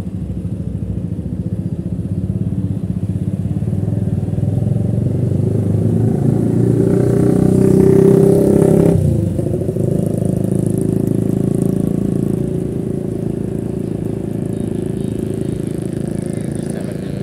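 Motorcycle engine running as it is ridden, heard from the rider's seat. The engine note climbs in pitch and loudness over several seconds, then drops suddenly about nine seconds in and settles to a steady run.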